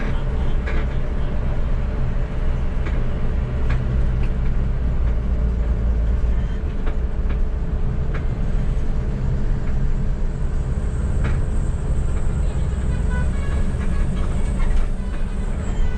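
Bus diesel engine running with a steady low rumble, with a few light knocks and rattles. A faint high whine comes in about two-thirds of the way through and stops just before the end.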